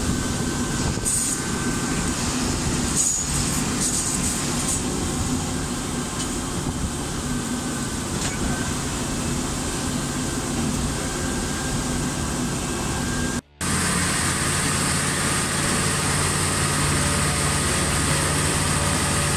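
Plasser & Theurer PLM 07-275 switch tamping machine's diesel engine running steadily as the machine rolls slowly along the rail. The sound cuts out for a moment about thirteen and a half seconds in, then carries on.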